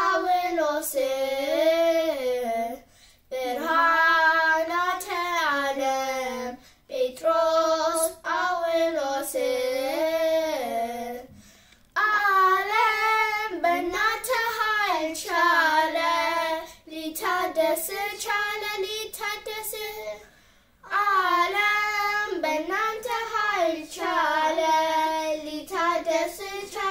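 Two girls singing an Ethiopian Orthodox hymn (mezmur) together without accompaniment, in phrases of a few seconds with short breath pauses between them.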